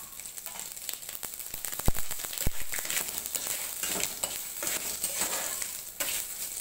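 Whole spices tempering in hot oil in a kadai: black mustard seeds, five-spice mix, dried red chillies and bay leaves sizzling, the seeds crackling and popping, with two sharp pops about two seconds in.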